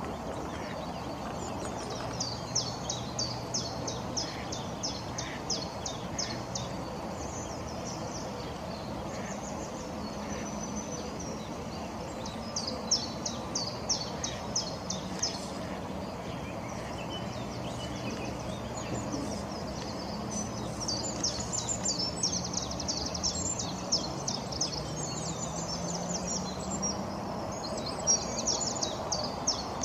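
Small songbirds singing in several runs of rapid, high chirps, over a steady low background hum.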